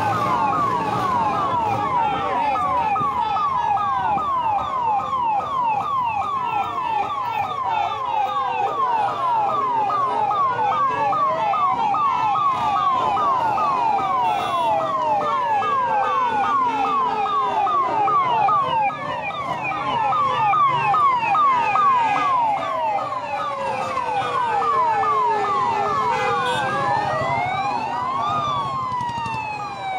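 Emergency-vehicle sirens from ambulances just ahead: one on a fast yelp, quick rising sweeps over and over, while a second siren wails slowly up and down every few seconds.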